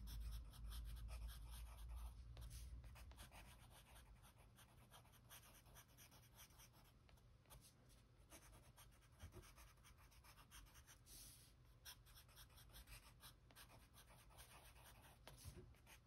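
Faint scratching of a pencil writing by hand on sketchbook paper: many quick, light strokes. A low rumble fades away over the first few seconds.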